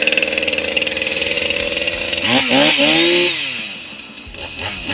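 Husqvarna 455 Rancher two-stroke chainsaw engine running just after starting, choke pushed in. It idles steadily, is revved up once about two seconds in and held for about a second, then drops back, with a smaller blip of the throttle near the end.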